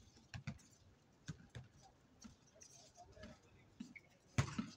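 Scattered, irregular thumps of a basketball and players' feet on a hard outdoor court, with a louder, ringing knock near the end.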